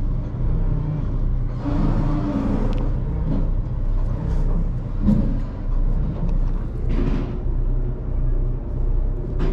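A steady low engine drone with an even hum, with two brief rushes of noise about two and seven seconds in.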